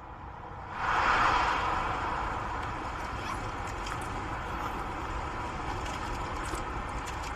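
A moving train's running noise, a steady hiss that swells up about a second in and then settles.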